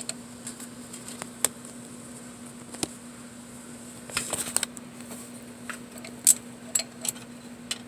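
Scattered sharp metallic clicks and clinks of a wrench working a nut welded onto a broken exhaust stud, backing the stud out of the cylinder head, over a steady low hum.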